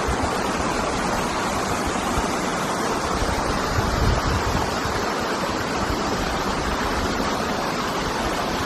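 Steady rushing outdoor noise, with wind buffeting the microphone in low, uneven rumbles that are strongest about four seconds in.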